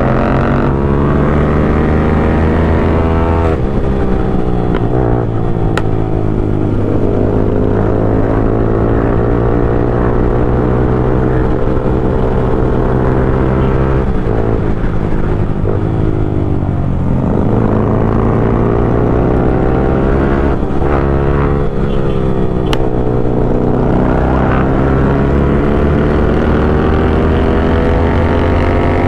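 Motorcycle engine under way, its pitch climbing and then dropping sharply several times as the rider works the throttle and changes gear.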